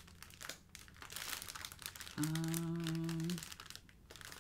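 Clear plastic wrapping crinkling as a bundle of diamond-painting drill packets is handled and turned. About two seconds in, a person gives a steady hummed "hmm" lasting about a second.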